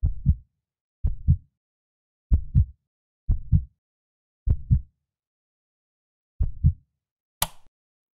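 Heartbeat, slow paired lub-dub thumps, six beats about a second apart, with a longer gap before the last one. A single sharp click near the end.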